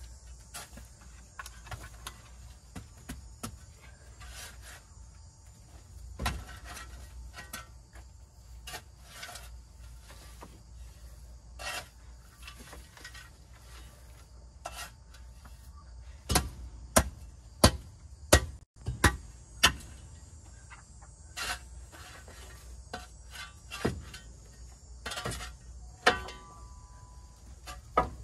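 Steel spade shovel scraping and chopping at hard, caked-up chicken litter and dirt on a coop floor: irregular scrapes, with a quick run of sharp strikes about two-thirds of the way in.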